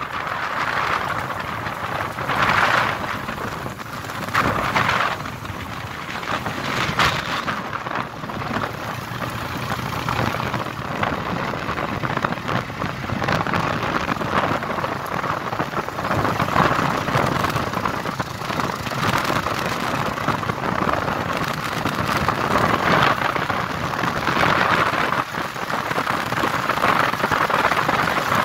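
Motorcycle riding along an unpaved road: steady wind rush over the microphone and road noise, swelling and easing every few seconds, with the engine low underneath.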